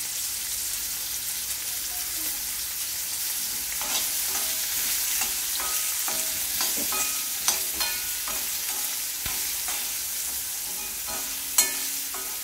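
Karonda pieces and tempering spices sizzling in hot oil in an aluminium kadai while a steel spoon stirs them, scraping and knocking against the pan, with a sharp clank past the middle and a louder one near the end.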